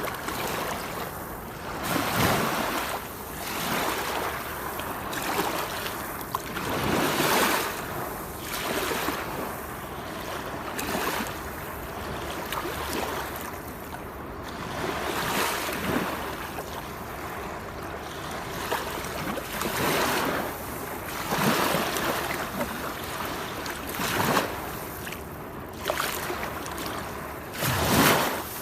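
Steady rushing water with a noisy hiss across the range, swelling and easing every couple of seconds, with stronger surges now and then.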